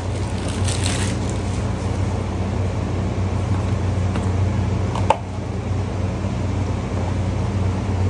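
Steady low background hum, with light handling of a cardboard box and one short knock about five seconds in.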